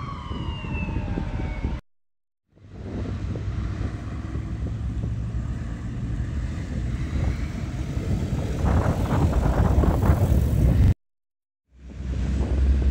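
An emergency vehicle siren's falling wail trails off in the first second. It is followed by steady road-traffic rumble and wind noise on the microphone, which grows louder and rougher for a couple of seconds before the end. The sound drops out twice briefly.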